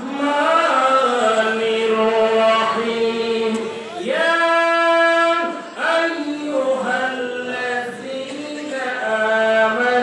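A man singing unaccompanied into a microphone in a slow melody of long, bending notes, with one long steady note about halfway through.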